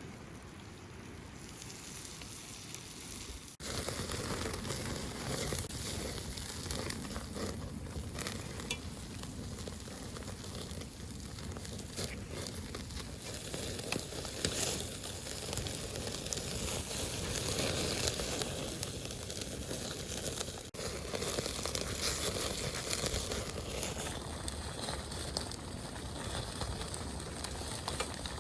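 Food sizzling and crackling in hot butter, louder from about three and a half seconds in.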